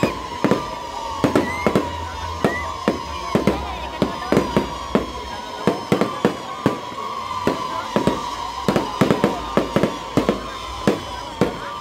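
Aerial fireworks going off in quick succession: a dense run of sharp bangs and crackling bursts, several a second. A steady whistling tone runs beneath them, and a few short rising whistles come near the start.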